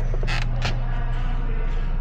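Hand tools working on engine parts: a few sharp clicks and creaks in the first second, over a steady low hum.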